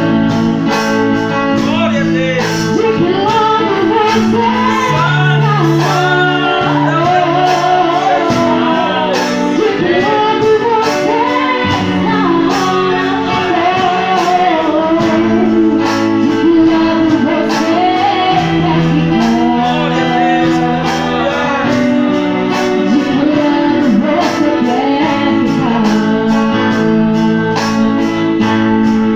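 A woman singing a Portuguese gospel worship song into a microphone, over keyboard accompaniment with a steady beat.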